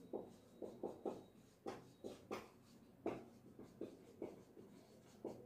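Marker pen writing on a whiteboard: a faint run of short, irregular strokes as letters are drawn.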